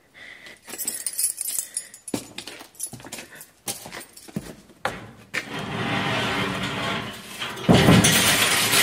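A jailer's keys jangling, with scattered clicks and knocks, then a steady grinding noise for a couple of seconds and a louder burst near the end.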